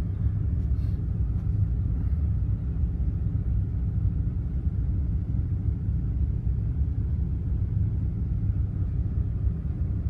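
Steady low rumble aboard a container ship under way, with no distinct sound standing out above it.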